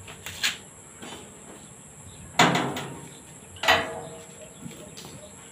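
Metal clanks as the sidecar wheel assembly is set into its steel mount on the sidecar frame: a light click, then two loud knocks a little over a second apart, each ringing briefly, the second with a clear metallic ring.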